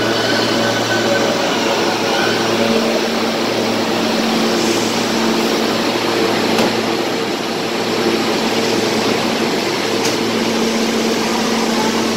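New York City subway train slowing to a stop at a station platform and then standing: a steady hum from the car's equipment and air conditioning, with a higher whine that stops about two seconds in as the train comes to rest.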